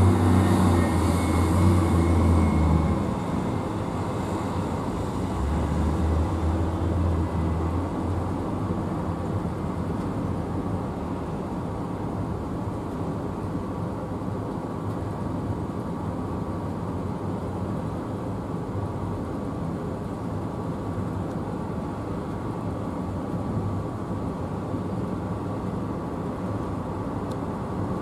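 Boeing 777-300 airliner's jet engines as it rolls out on the runway after landing. The noise is louder, with a deep rumble, for the first three seconds, then settles into a steady, somewhat quieter hum.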